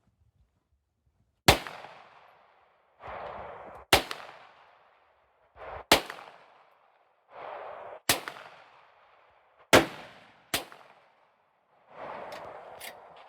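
Six gunshots fired one at a time, roughly two seconds apart, the last two closer together, each ringing out briefly after the crack.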